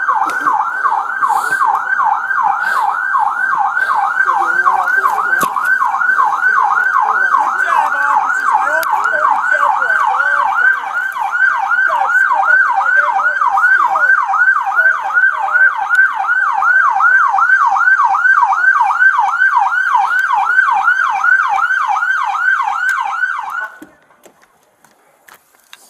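Police car siren on the fast yelp setting: a loud wail that sweeps up and down about three times a second and cuts off abruptly near the end.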